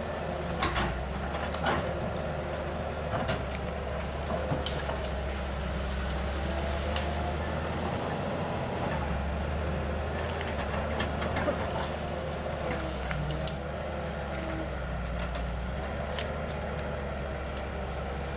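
Excavator's diesel engine running steadily, with scattered sharp knocks and clanks.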